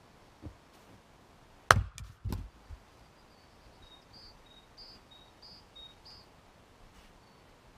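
Fiskars X25 splitting axe striking a log once about two seconds in: one loud, sharp crack, followed within a second by a few lighter knocks. Faint high two-note bird calls repeat four times later on.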